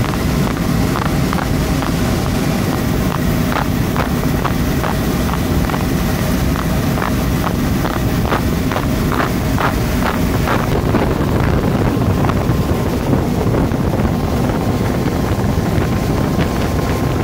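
Short-cut pasta production line running: a loud, steady machine rumble and hiss with many light, irregular clicks through the first ten seconds or so. Then the hiss eases and a faint steady whine comes in.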